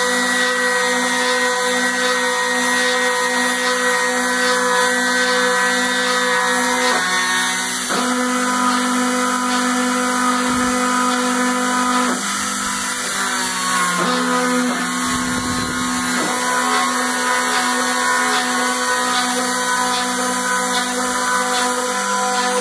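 Homemade CNC milling machine running, its motors giving a steady pitched whine that shifts to new pitches several times as it works.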